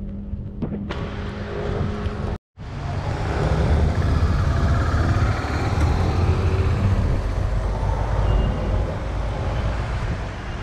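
Road traffic, with a large vehicle running close by. The sound drops out for a moment about two seconds in, then comes back louder.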